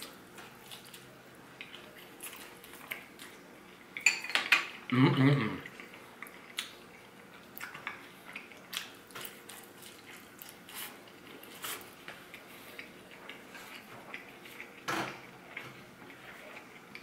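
Close-up chewing and crunching of a fried corn tortilla taco, with many small crisp clicks and mouth sounds. A louder cluster of crunches comes about four to five seconds in, with a short hummed voice sound.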